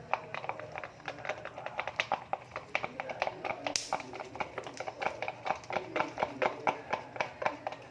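Fluffy slime being mixed with detergent activator: rapid, irregular wet clicks and taps, several a second.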